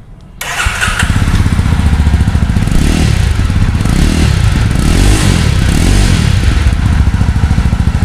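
Jawa 42 2.1 motorcycle's single-cylinder engine starts about half a second in and runs through its twin exhausts, with the revs rising and falling a few times in the middle. The owner calls it a fairly basic exhaust note.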